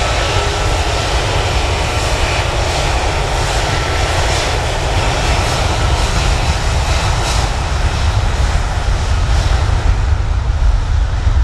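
Rolls-Royce Trent 700 turbofans of an Airbus A330-200 freighter at takeoff thrust during the takeoff roll: a loud, steady jet roar with a deep rumble underneath, growing a little louder near the end as the aircraft passes.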